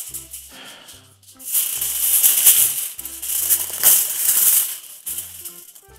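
Aluminium foil crinkling and rustling as it is handled and pressed, loudest in the middle stretch, over background music.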